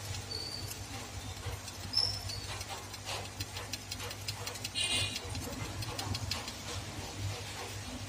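Steady low electrical hum from the rework bench, with light ticks and scrapes of a thin metal tool working on a phone circuit board, and two brief high squeaks in the first two seconds.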